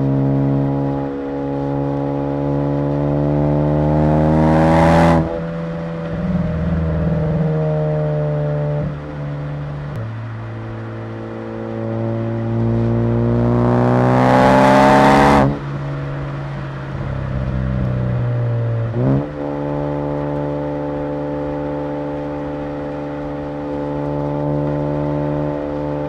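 Turbocharged 2.0 L EcoBoost four-cylinder of a 2015 Ford Focus ST fitted with a BorgWarner EFR-6758 turbo, revving up hard twice. Each pull ends in a loud, sharp rushing hiss as the revs drop. The engine then settles into steady cruising.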